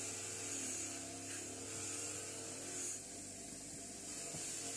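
Small electric power tool motor running with a whine that dips and rises in pitch, stopping about three seconds in, over a steady electrical hum.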